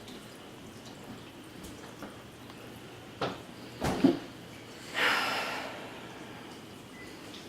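Floodwater dripping and trickling, with a few sharp knocks about three to four seconds in and a short rushing splash about five seconds in that fades over a second.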